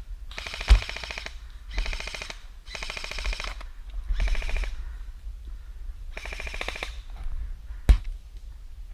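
Airsoft electric guns firing short full-auto bursts: about five rapid rattling strings, each under a second long, with gaps between them. Two single sharp snaps stand out, one just after the start and one near the end.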